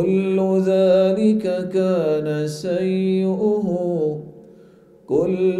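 A man reciting the Quran in Arabic in a melodic, chanted tajweed style, one long drawn-out phrase with its pitch sliding between held notes. He stops a little past four seconds in and resumes with the next phrase near the end.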